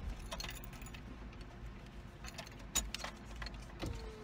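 Scattered light clicks and jingles of small objects being handled inside a car, over a low steady hum.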